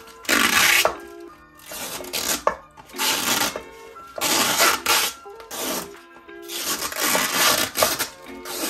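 Chill instrumental background music with a steady beat: held keyboard notes under a noisy drum hit that comes back roughly once a second.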